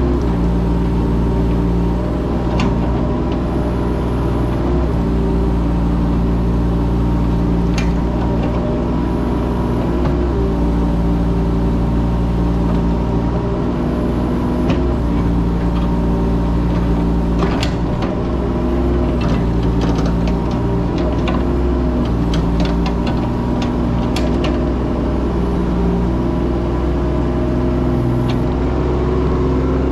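Mini excavator engine running steadily, its note shifting every few seconds as the machine works. Scattered sharp clicks and knocks, most of them in the second half.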